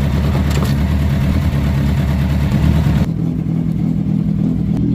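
Suzuki Hayabusa inline-four motorcycle engine running steadily. About three seconds in, the sound changes abruptly as the high hiss drops away, while the engine's steady note carries on.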